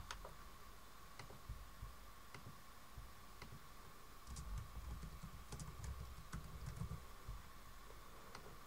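Faint, scattered computer keyboard clicks, roughly one a second, with soft low bumps through the middle stretch, over a faint steady tone.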